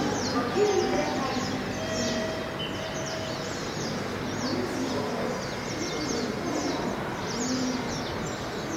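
A flock of small birds chirping continuously: a dense chatter of many short, quick falling chirps, with steady background noise beneath.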